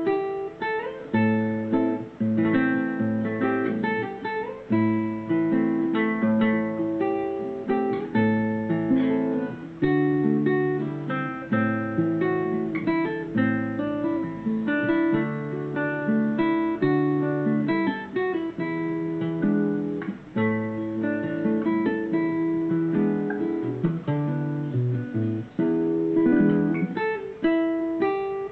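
Solo nylon-string classical guitar played fingerstyle: a song melody picked out over plucked bass notes, each note ringing and fading.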